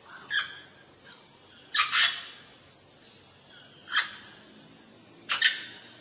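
Amazon parrot squawking: four short, rough calls spaced a second or two apart, the second and last of them doubled.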